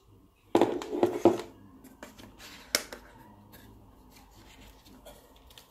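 Hands handling a coiled power cable and the cardboard packaging: a burst of rubbing and knocking about half a second in, a sharp click a little under three seconds in, then faint rustles and small clicks.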